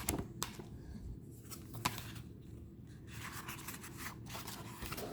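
Tarot cards being handled as the next card is drawn and turned over: soft sliding and rubbing of card stock, with a few light taps near the start and about two seconds in.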